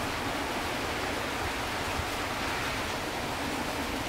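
Steady rain falling all around, an even, constant hiss with no separate drops standing out.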